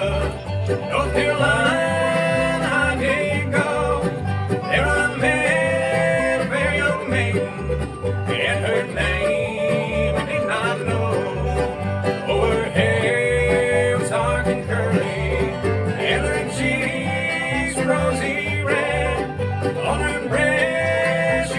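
Live bluegrass band playing: banjo and other strings over a plucked upright bass keeping a steady beat.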